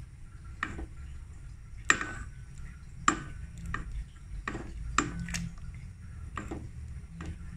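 Wooden spoon stirring soup in a stainless steel pot, knocking against the pot's sides and bottom in irregular taps about once a second, over a low steady hum.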